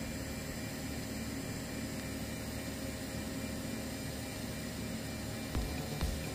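Steady hiss and hum of a TIG welding arc on a stainless steel fillet joint. Low thumps start near the end.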